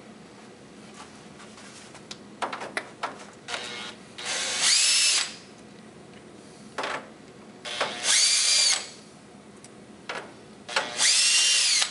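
Electric drill fitted with a socket, run in three short bursts of about a second each to spin nuts off the panel's studs. Each burst whirs up in pitch, holds, then winds down. A few light clicks come before the first burst.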